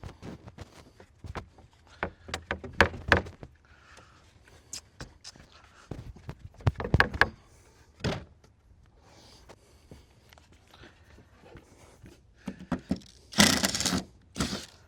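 Scattered wooden knocks and clunks from decking boards being handled and fitted, with a louder scraping rush of board against board about a second before the end.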